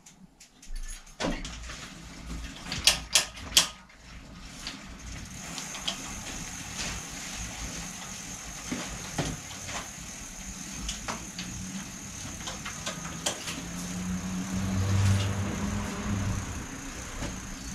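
Hand-work on a bicycle in a repair stand: several sharp clicks and knocks of parts and tools, then steady mechanical handling noise with a thin high whine and a low hum swelling near the end.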